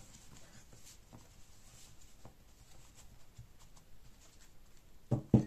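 A deck of tarot cards being shuffled by hand, with soft sliding and faint patter of the cards. Near the end come two sharp knocks close together.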